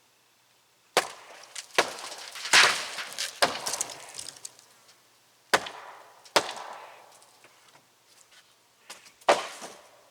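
Rotted wooden deck boards being broken apart: about seven sharp cracks, each trailing off into splintering and crackling, in irregular bursts with short pauses between.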